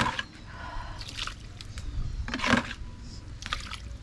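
Wooden pestle stirring pounded palm-nut pulp with warm water in a wooden mortar: a few separate wet slops and splashes, the loudest about two and a half seconds in. The pulp is being loosened with the water so it can be strained for nyembwe sauce.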